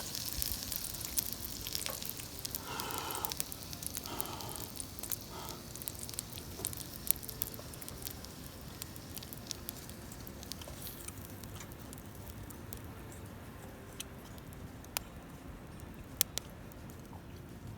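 Food sizzling over a wood fire. The sizzle fades gradually through the second half, with scattered sharp pops and crackles.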